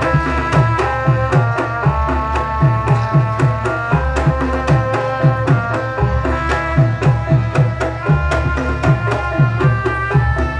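Traditional Javanese dance accompaniment for the warok dance: quick hand-drum strokes under a melody of held notes that step from pitch to pitch.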